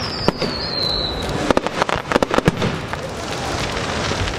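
Fireworks display: a string of sharp bangs and crackles, densest around the middle. A high whistle falls in pitch through the first second and fades out.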